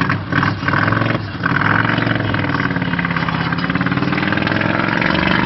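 Loud exhaust note of a freshly rebuilt engine running. It is uneven for the first second or so, then holds steady with its pitch drifting up and down.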